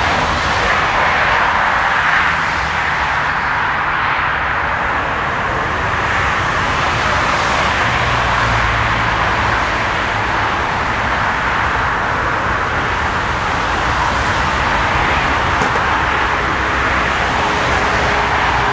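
Dash 8-400 turboprop's engines and propellers running as it rolls along the runway, a steady loud drone with a low hum beneath.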